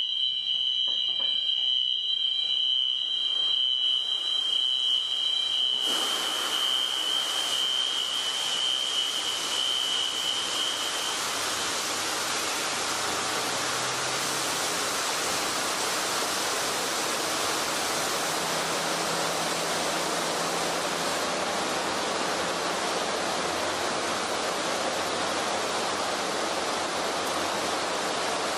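A steady high-pitched alarm tone sounds. About six seconds in, a loud, even rushing starts suddenly as the hangar's high-expansion foam generators begin discharging. The alarm fades out a few seconds later and the rushing of the foam discharge goes on steadily.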